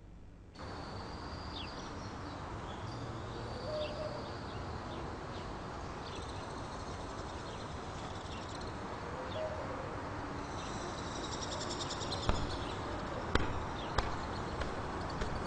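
Outdoor ambience with small birds chirping over a steady background hiss, and a few sharp knocks in the last few seconds.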